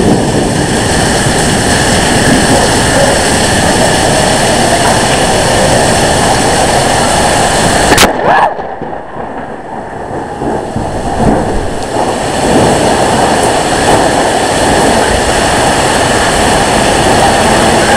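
Strong microburst wind gusts buffeting the microphone in a loud, steady rush. A single sharp crack comes about halfway through, after which the rush drops away for a few seconds and then builds again.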